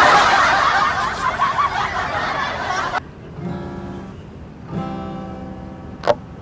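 A loud, dense burst of noise that cuts off suddenly about three seconds in, then an acoustic guitar strummed twice, each chord left ringing, and a sharp click near the end.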